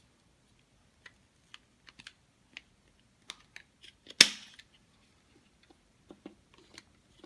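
Plastic football-shaped push fidget puzzle being worked by hand: small scattered clicks as its pieces are pushed, then one loud sharp snap about four seconds in as a piece pops through.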